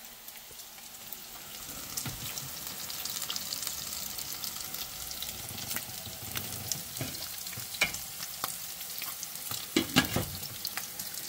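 Bacon frying in a pan: a steady sizzle with crackling pops, and a few knocks of a utensil stirring in the pan, loudest near the end.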